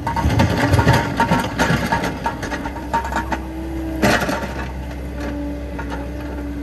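Tractor engine running steadily, with a burst of crackling and clicking over the first few seconds and a sharp knock about four seconds in.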